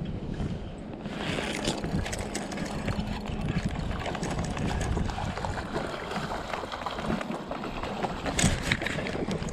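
Rushing noise of river water and wind on the microphone, growing louder about a second in, with a brief sharper crackle near the end.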